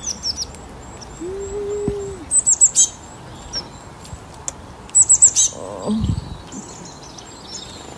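Garden birds calling: two quick runs of high chirps, and about a second in one long, low, steady hooting note held for just under a second.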